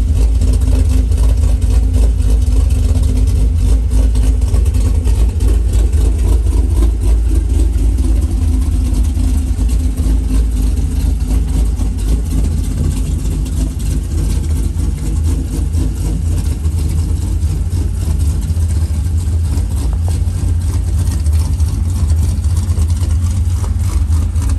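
Pontiac G8 GT's 6.0-litre V8 engine running with a steady low rumble, its pitch easing down a little about a third of the way in.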